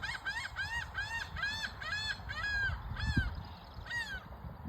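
Laughing gull giving its laughing call: a run of short, arched 'ha' notes, about three a second, that slows and spaces out after about three seconds, with one last note about four seconds in.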